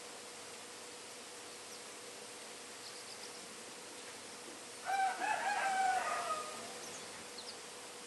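A rooster crows once, about five seconds in, a single drawn-out call of just over a second and the loudest sound here. A few faint, short high chirps from small finches come before and after it, over a steady hiss.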